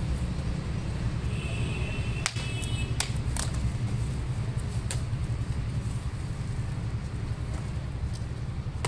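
Zip ties on a bicycle frame being cut with a pocket knife: a few sharp clicks, one about two seconds in and more around three and five seconds, over a steady low background rumble.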